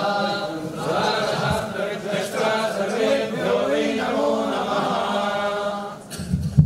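A group of Hindu priests chanting mantras in unison, a steady drone under several voices. The chanting stops about six seconds in, and a few sharp knocks follow.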